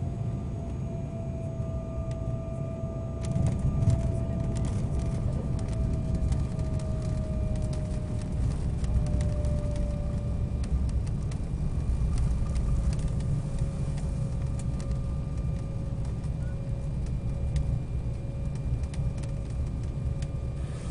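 Embraer 190 jet heard from inside the cabin as it touches down about three seconds in. After that comes a runway rumble with rattling as it rolls out with the ground spoilers up. Over it, the engines' whine slowly falls in pitch.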